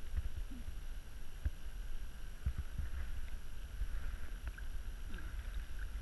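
Shallow pond water sloshing softly around hands holding a fish under the surface, with faint small splashes and a steady low wind rumble on the microphone.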